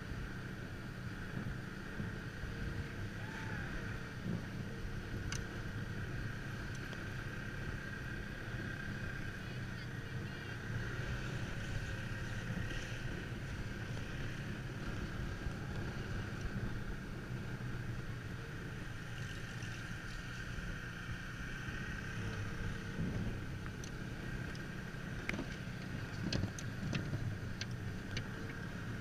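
Dog sled gliding over a packed snow trail: a steady hiss and rumble from the runners on the snow, with wind on the microphone. A few sharp clicks come through near the end.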